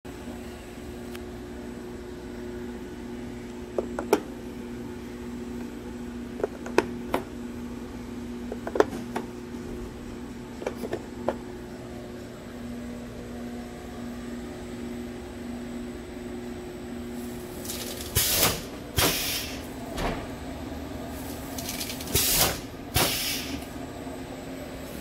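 Automatic packaging line running: a steady machine hum with scattered knocks and clacks as boxes move along the conveyor. In the last seven seconds come several loud, short rushing bursts from the shrink-wrapping machine.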